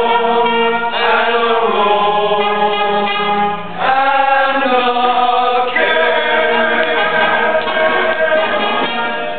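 Men's chorus singing a show tune in long held notes, the chord changing about one, four and six seconds in; the singing ends just before the close.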